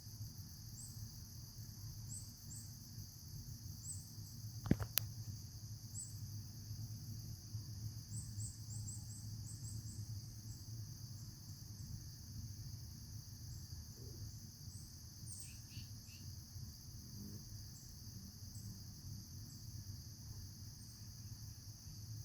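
Steady high-pitched insect chorus, like crickets trilling, with short chirps over it and a low background rumble. One sharp click about five seconds in.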